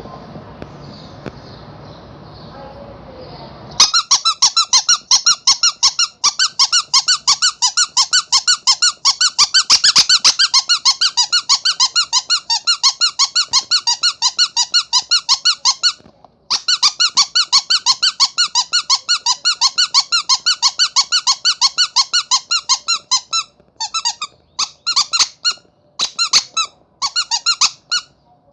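A rubber squeaky toy shaped like a monkey, squeezed over and over. After a few seconds of quieter background noise it gives a long run of rapid high-pitched squeaks, about four a second, with one brief pause. Near the end the squeaks come in short, uneven bursts.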